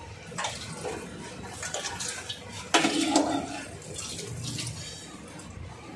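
Tap water running into a stainless steel sink while a metal pot lid is handled, with several clinks and clanks of metal. The loudest clank, about three seconds in, rings briefly.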